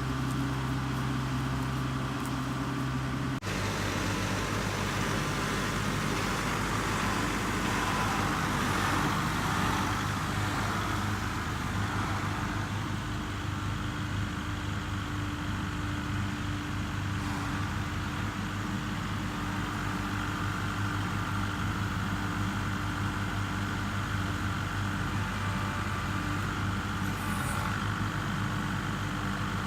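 Kubota MX5800 tractor's diesel engine running steadily, with an abrupt change in its sound about three seconds in.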